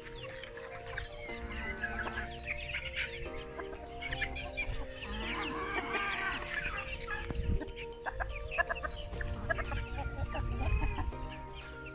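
Chickens clucking, with short, repeated calls throughout.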